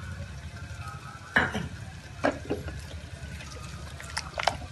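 Wooden dal masher stirring tamarind water into mashed dal in an aluminium pressure cooker: liquid sloshing, with a few knocks of wood against the pot, the loudest about a second and a half in.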